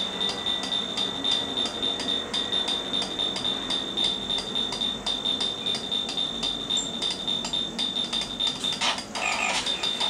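Chip music from a Commodore Plus/4's TED sound chip playing a demo: an even pattern of about five pulses a second over a steady high tone. It changes near the end as the demo moves on to its next part.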